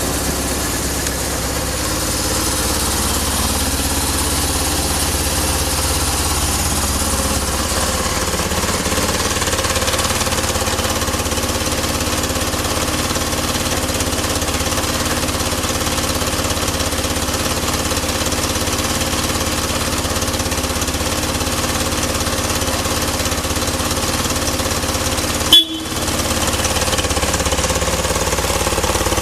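BMW R1100RS air/oil-cooled boxer twin idling steadily and evenly, with no abnormal noise. Near the end there is one short sharp blip, then a momentary gap in the sound.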